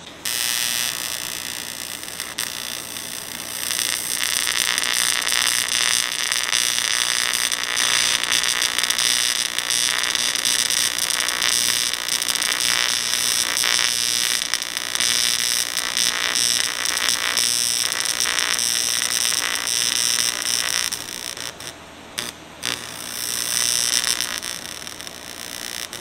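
AC TIG welding arc on aluminum, a steady loud buzz with hiss as the weld puddle is run. Near the end the arc drops back for a moment and then picks up again.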